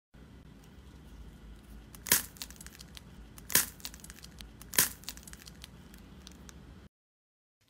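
A painted eggshell crushed in a hand: three loud, sharp cracks starting about two seconds in, with fine crackling of shell pieces between them, stopping abruptly near the end.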